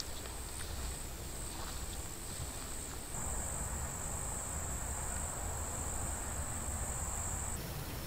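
An insect's steady, high-pitched trill, continuous and unbroken. It grows louder about three seconds in and cuts off abruptly near the end.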